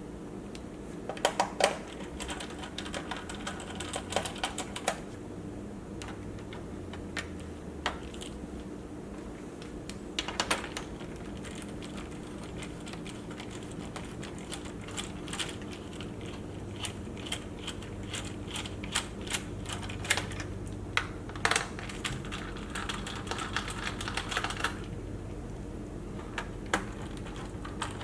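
Irregular small clicks and taps, coming in quick clusters, from hands working on an MSI GT780 laptop's plastic case and parts, over a steady low hum.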